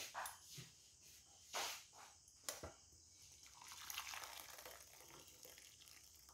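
Fish broth being poured from an aluminium pot into a ceramic bowl, faint: a few brief knocks and splashes, then a longer run of pouring liquid about midway.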